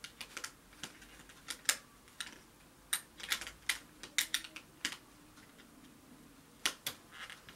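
Light, irregular clicks and taps of small nail art tools being handled and put back among the kit's contents, with a short lull before a last couple of clicks.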